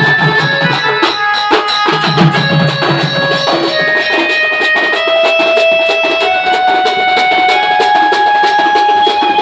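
Sambalpuri band music: a melody of long held notes stepping from pitch to pitch over dense, fast drumming.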